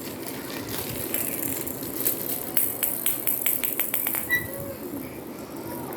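Plastic roll-ball toy being handled: a quick run of about eight light plastic clicks and rattles a few seconds in.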